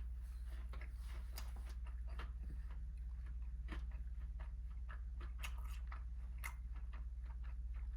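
Chewing a crispy Nashville hot fried chicken tender: irregular crunches and mouth sounds over a steady low electrical hum.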